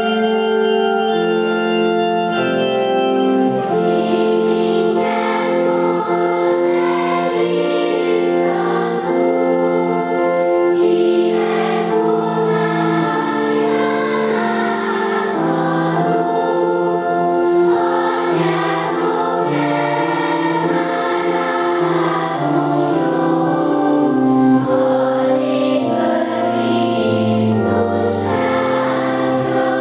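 Children's choir singing with organ accompaniment. Held organ chords open it, and the voices come in about three seconds in.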